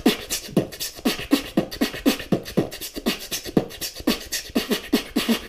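Human beatboxing: a fast, steady beat of mouth-made kick drums and snares with inhaled and blown breath sounds, about four low kick hits a second.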